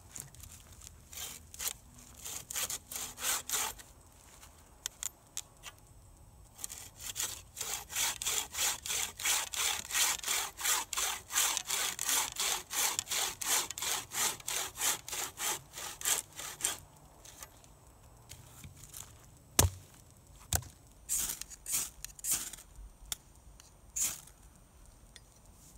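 Homemade frame bucksaw cutting through a log: the blade rasps back and forth at about three strokes a second, with a pause a few seconds in. Toward the end the sawing gives way to scattered knocks and clicks, including one sharp knock.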